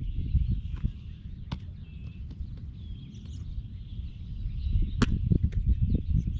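Wind buffeting the microphone, with birds chirping in the background. Two sharp knocks come about one and a half seconds in and again about five seconds in.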